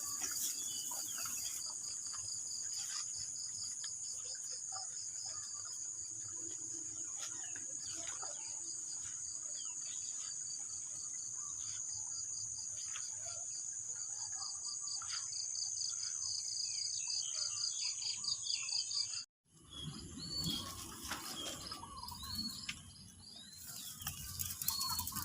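Insects trilling in a rice paddy: a steady high buzz with a pulsing chirp beneath it. About 19 s in the sound cuts out abruptly, then bird chirps and low rustling take over.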